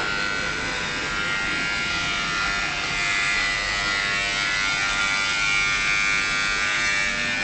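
Electric hair clippers running with a steady buzz while cutting a young man's long hair short.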